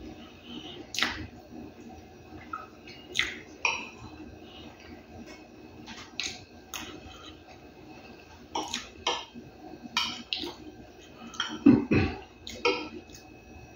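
Close-up eating sounds: irregular wet clicks and smacks of chewing, with a spoon scraping and clinking on a plate of food, and a louder knock about three-quarters of the way through.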